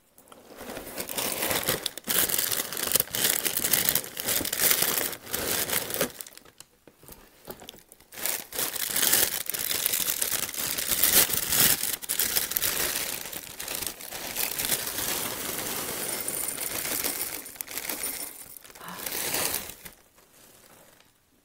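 Plastic cereal bag liner crinkling as it is handled and tipped, with dry cereal pieces pouring out of it into a ceramic bowl, broken by a short lull about seven seconds in.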